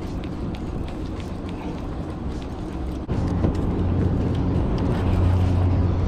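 A motor running with a steady low hum, which jumps louder suddenly about halfway through, over light clicking and rattling from handling the rod and gear.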